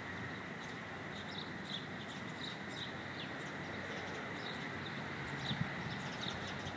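Small birds chirping off and on in the background, short high chirps every second or so, over a steady outdoor hiss.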